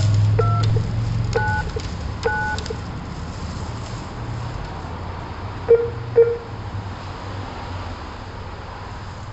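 Three keypad button presses, each sounding a short two-note dialing tone, then two shorter, lower beeps about six seconds in, over a low hum.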